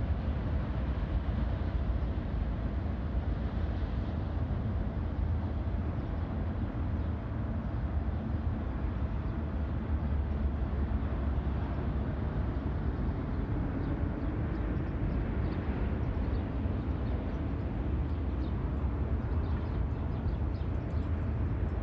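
Freight train of autorack cars rolling past in the distance: a steady, unbroken rumble.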